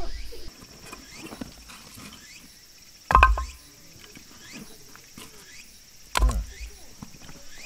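Pieces of split firewood dropped onto a woodpile, two sharp wooden knocks about three seconds apart, each with a short ring.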